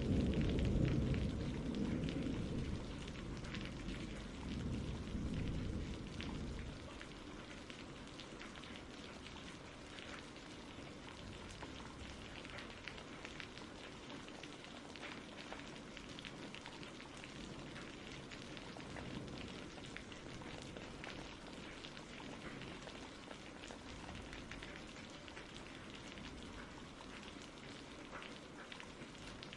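Steady rain falling, with fine pattering drops. A low rumble of thunder dies away over the first several seconds.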